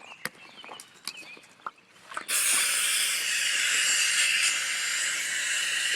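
Compressed air released from a home-rigged air compressor's tank and hose: a loud, steady hiss that starts suddenly about two seconds in and holds, as the tank pressure drops. A few light clicks and knocks come before it.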